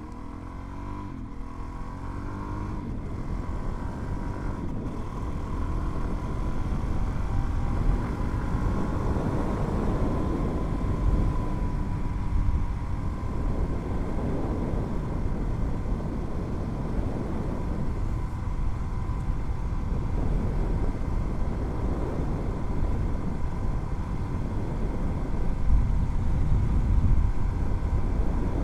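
Suzuki DR-Z400 single-cylinder four-stroke engine running under way, growing louder over the first several seconds and rising and falling in pitch with the throttle, with wind noise.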